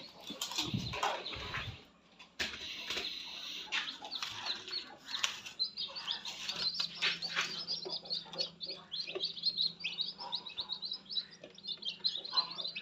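A crowd of newly hatched chicks peeping in high, rapid chirps, with rustling and knocks in the first few seconds.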